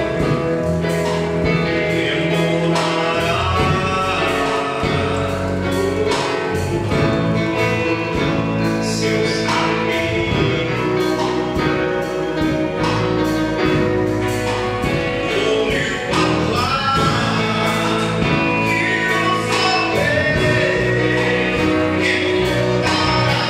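Live gospel worship song: a man sings lead through a microphone over electric guitar, bass, drums and keyboard, with a steady drum beat.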